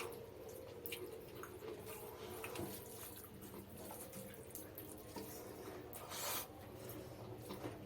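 Close-up eating sounds of mutton biryani with raita: irregular soft, wet chewing and lip-smacking clicks, one louder smack about six seconds in.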